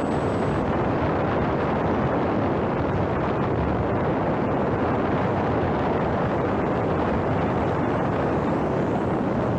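Steady, even rush of air and propeller noise on a camera carried by a small electric RC airplane in flight.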